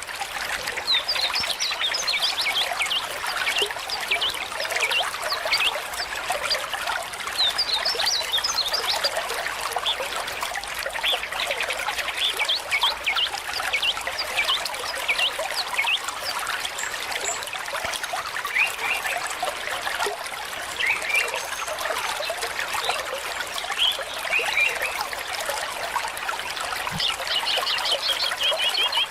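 Water trickling steadily, with many small birds chirping in quick, high calls over it.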